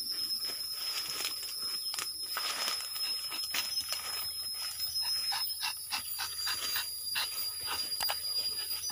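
Rubber-tapping knife scraping in short strokes through rubber tree bark, over a steady high-pitched insect drone.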